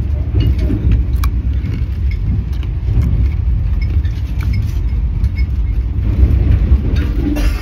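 Vande Bharat Express electric trainset running at speed, heard from inside the coach: a steady low rumble with light clicks and rattles over it.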